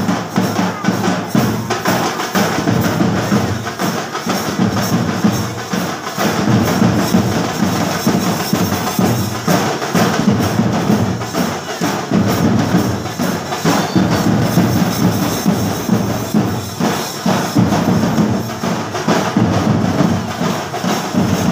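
A drum troupe playing loud, dense, continuous festival drumming, one unbroken stream of fast strokes.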